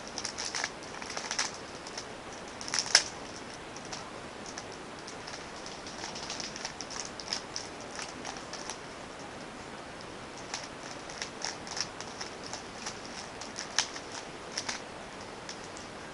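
A Rubik's Cube being turned quickly by hand: irregular plastic clicks and clacks of the layers snapping round, in flurries with short pauses between, the sharpest clack about three seconds in.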